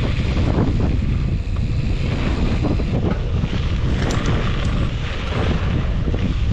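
Wind buffeting the microphone: a loud, steady low rumble, with a few faint clicks and knocks through it.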